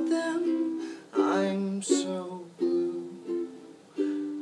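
Ukulele playing chords as song accompaniment, a new chord about every second, between sung lines.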